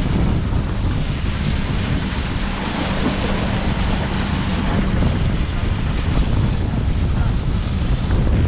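Wind rushing over the microphone on a moving motorboat, over the steady drone of the boat's motor and water rushing past the hull.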